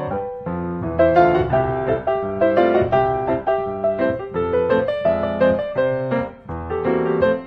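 Background piano music: a steady run of melodic piano notes with chords underneath.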